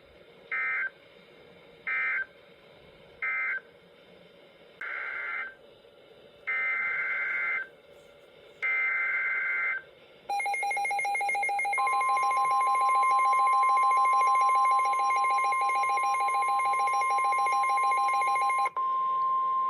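Emergency Alert System tones: three short end-of-message data bursts about a second apart, then three longer SAME header data bursts starting the next alert. About ten seconds in, a loud steady attention-signal tone begins and keeps going.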